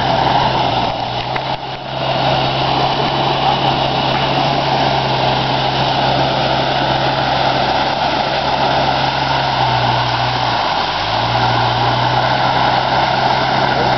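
Dodge Ram pickup's engine running steadily under load as the truck drives through mud and standing water, with a dip in engine speed about ten seconds in before it picks back up.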